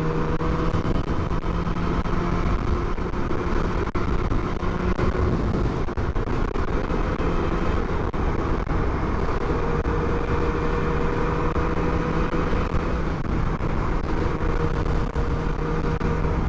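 Motorcycle engine running at a steady speed under heavy wind rush on the helmet camera's microphone.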